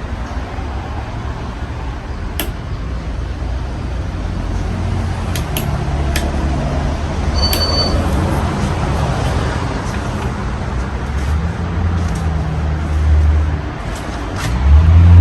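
A 53-inch Casablanca Halogen Star ceiling fan, fitted with five blades, running: a steady low rumble from its motor and the air it moves, with a few faint clicks.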